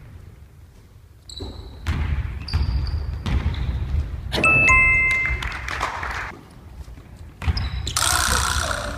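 Basketball bouncing on a wooden gym floor under light added music, with bright chime sound effects, the clearest a little over four seconds in. A loud burst of noise near the end.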